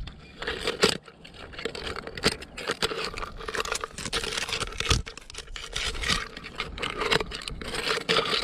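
Metal rod scraping and knocking against rock as it is worked into a crab hole: a run of irregular scrapes and clicks.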